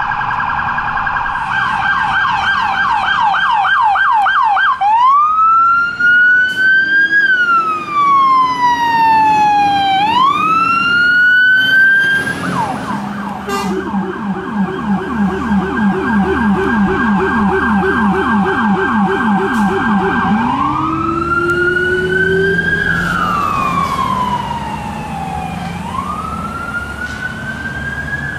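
Fire-rescue aerial pumper electronic sirens switching between a fast yelp and a slow wail that rises and falls over a few seconds. A second appliance's yelp in the middle carries a much deeper copy of the tone underneath, a low-frequency rumbler siren.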